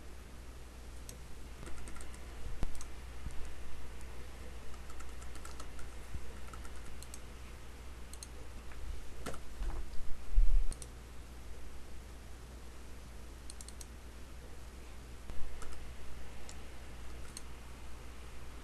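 Scattered clicks of a computer mouse and keyboard, a few at a time at uneven intervals, over a steady low hum, with a dull low thump about ten seconds in.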